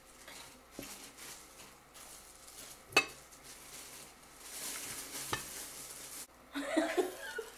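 Close-up eating sounds: roasted chicken being torn apart by hand and chewed, with rustling and smacking. A sharp tap about three seconds in is the loudest sound, and a brief burst of voice comes near the end.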